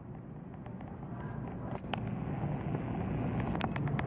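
PCC streetcar running along its track at a distance: a low, steady rumble that slowly grows louder, with a few faint clicks.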